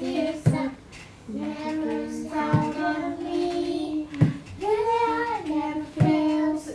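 A young child singing slowly in long held notes, with one rising phrase near the middle. A sharp knock comes about every two seconds.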